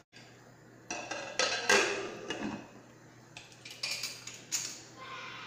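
Aluminium pressure cooker lid being put on and closed over the pot: several sharp metal clanks and scrapes.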